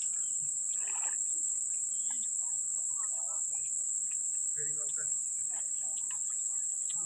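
Steady, high-pitched insect chorus, with faint distant voices now and then.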